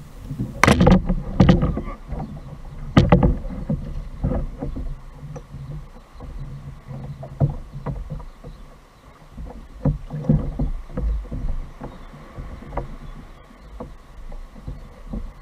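Fishing kayak on the sea: paddle splashes and sharp knocks of gear against the plastic hull, three loud ones in the first three seconds and scattered softer ones after, over the low wash of water around the boat.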